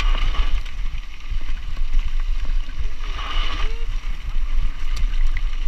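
Wind buffeting a handlebar-mounted action camera's microphone over the rumble of mountain bike tyres rolling on a gravel track. A brief higher hiss swells twice, at the start and about three seconds in.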